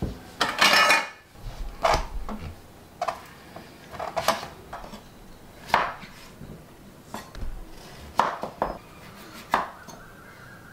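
Kitchen knife cutting on a wooden chopping board: irregular sharp knocks, with a louder clatter just under a second in.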